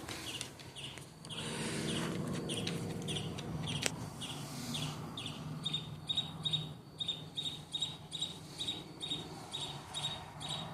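A bird calling at night: a long run of short, high repeated notes, irregular at first, then settling into a steady series of about two notes a second.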